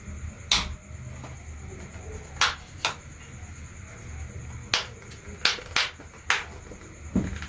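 A series of sharp taps, about eight of them at an irregular pace, over a faint steady high-pitched tone.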